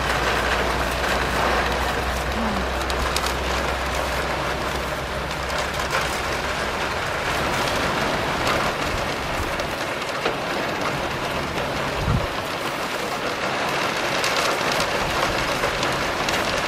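Steady rain falling, an even hiss. A low, steady rumble lies under it for the first ten seconds or so, and a single dull thump comes about twelve seconds in.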